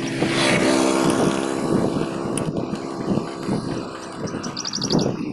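Motorcycle engine running at a steady cruising pitch while riding, with wind noise over it. The engine's hum is strongest in the first couple of seconds and then eases. Near the end there is a brief run of high, quick chirps.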